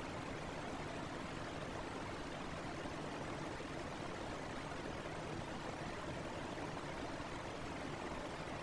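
Electric fan running steadily: an even whooshing noise that does not change.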